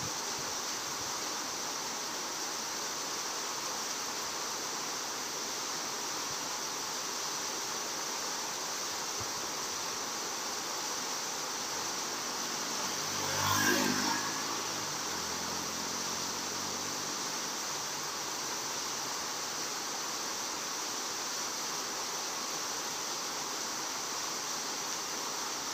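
Steady rushing outdoor noise, with a motor vehicle passing about halfway through: its engine note swells for a second or so, then falls in pitch as it moves away.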